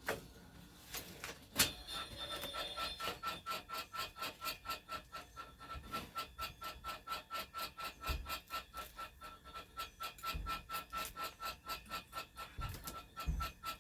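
Homemade wire stripper driven by an old treadmill's motor, running with a rhythmic pulsing whine of about four beats a second. A sharp click comes about a second and a half in, and a few dull thumps come later.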